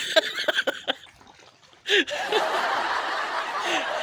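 Men chuckling and laughing in short bursts. After a brief lull about a second in, a dense, busy background of many overlapping short sounds starts suddenly and runs on.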